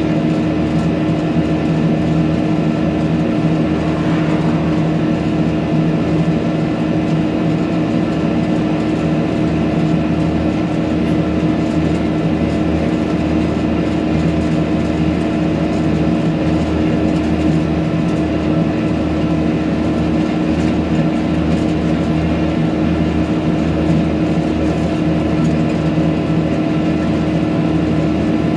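Tractor engine running steadily while cruising down a road at a constant speed, a steady drone that holds one pitch, heard from the driver's seat.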